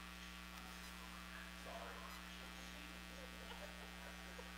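Low, steady electrical mains hum, with a few faint, indistinct sounds over it.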